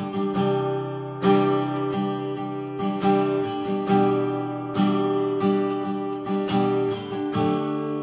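Taylor GS Mini-e Koa acoustic guitar with a shaded edgeburst top, strummed as a demonstration of its tone: full ringing chords struck in a steady rhythm, with the chords changing along the way.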